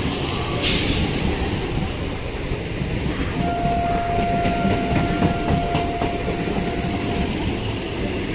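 Eastern Railway EMU local train rolling past close by, with a steady rumble and the wheels clattering over the rails. A single steady tone sounds for about four seconds midway.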